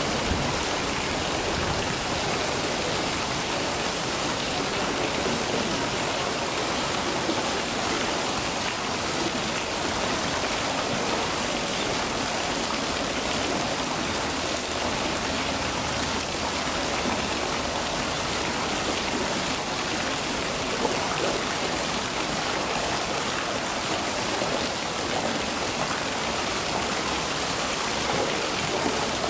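Steady rushing water, an even unbroken hiss.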